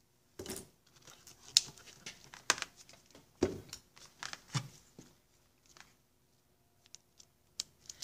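Gloved hands handling wire leads and a small plastic electrical connector: a run of irregular clicks, rustles and crinkles, thinning out to a few light ticks near the end.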